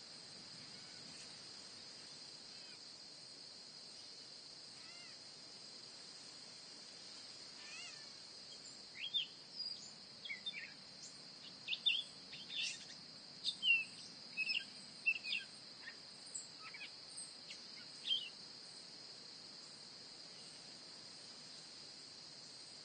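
Outdoor nature ambience: a steady high insect drone throughout, with a flurry of short bird chirps and calls from about eight to eighteen seconds in.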